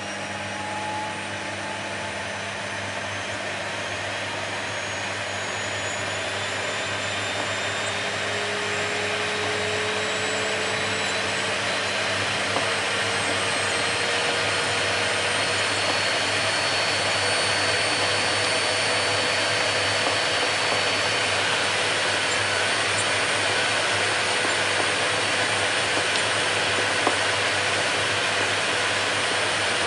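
Vacuum cleaner running continuously with a full rushing noise, its motor whine slowly rising in pitch and growing louder over the first half, then holding steady.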